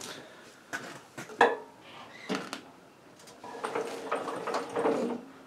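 Metal clanks and knocks from handling a cement mixer's chain drive and small engine, the loudest about a second and a half in. Near the end comes about a second and a half of scraping, rattling metal as the engine and chain are shifted by hand.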